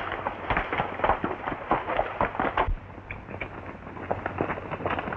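Horses' hooves thudding and clattering irregularly on rough ground as horses move off, dense in the first two and a half seconds, then sparser and quieter.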